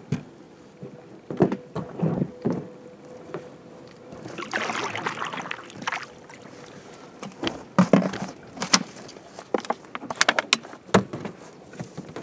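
A rope is handled and tied off at an inflatable boat's oar and oarlock. Scattered knocks and clicks on the boat and oar, with a longer rustling, rubbing stretch about halfway through.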